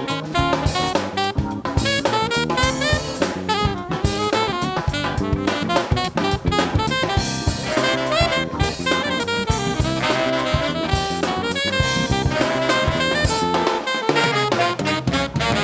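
Funk band playing: a saxophone-led horn section carries the tune over drum kit, bass and piano.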